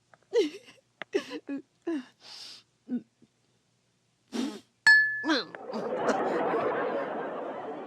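A sharp metallic ping about five seconds in, the hit of a blowgun pellet, followed by a studio audience laughing for about three seconds. Before it come short vocal sounds.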